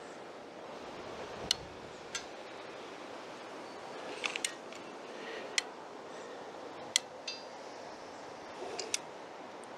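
Hand-held caulking gun being squeezed to lay down adhesive. Its trigger and plunger rod give sharp clicks, one every second or two, over a steady background hiss.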